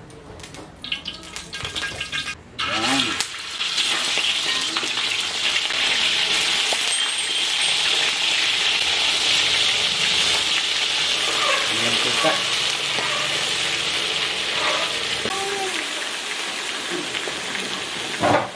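Raw chicken pieces frying in hot oil in a wok. A steady, loud sizzle sets in about three seconds in and continues as more pieces are added.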